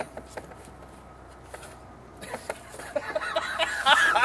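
Air hissing past a tightly sealed potato in a spud-cannon barrel. A faint hiss starts about two seconds in, and squeaky, rising squeals come near the end.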